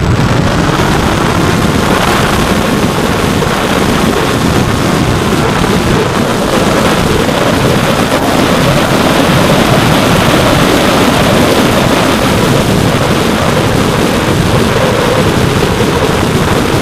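Loud, steady rush of airflow over the microphone of a keychain camera riding on an RC plane in flight, with the brushless outrunner motor and 8-inch propeller running beneath it.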